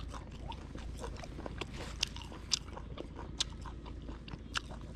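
A person chewing a mouthful of Vietnamese fermented pork (thịt chua) with pork skin, rolled in a lá mơ leaf: a run of irregular chewing clicks close to the microphone, a few of them louder.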